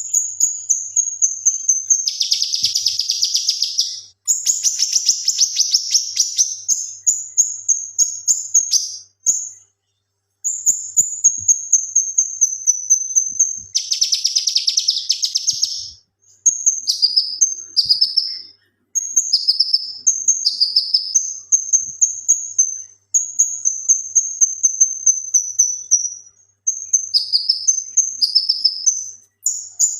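Male cucak kinoi leafbird singing in full, continuous song: quick high-pitched chirping and whistled phrases of rapidly repeated notes, broken three times by long harsh rattling bursts.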